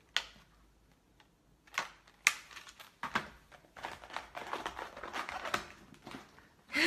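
Handling noises close to the microphone: a sharp click just after the start, two more about two seconds in, then a few seconds of irregular rustling and tapping.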